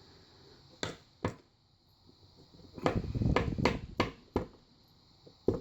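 Sharp little metal clicks and taps with some scraping, from handling a Schlage lock cylinder plug while working its pin tumblers out. Two single clicks come early, and a busier stretch of tapping and handling follows a few seconds in.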